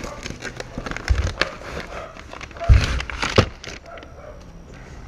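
Packaging crinkling and rustling as exhaust parts are unpacked and handled, with scattered clicks and two dull thumps, about a second in and near three seconds in.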